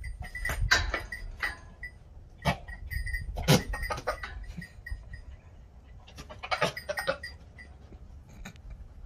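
Fainting (myotonic) goat buck making guttural mouth-breathing and spitting noises in irregular short bursts, a rutting buck's courtship display at a doe.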